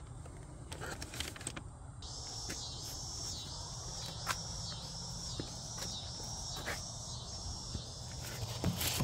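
Insect chorus: a high, pulsing chirring that comes in about two seconds in and swells and fades about one and a half times a second, with a few faint clicks.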